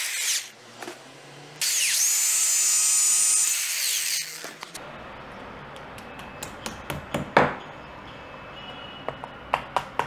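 Corded electric drill boring into a wall. One run stops just after the start, then a second run of about two and a half seconds whines up in pitch as the motor spins up. After the drilling come a few scattered clicks and, near the end, a quick series of light taps.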